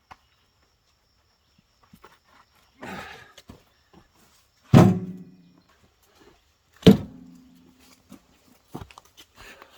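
Sawn oak firewood blocks being handled, with a scrape about three seconds in and then two loud knocks about two seconds apart, each with a short ringing tone.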